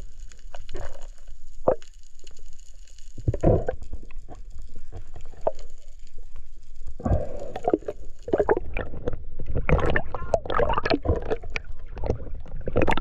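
Muffled underwater sounds with scattered dull knocks and gurgles, then from about seven seconds in, busy splashing and sloshing of water as the diver comes up at the surface beside a boat.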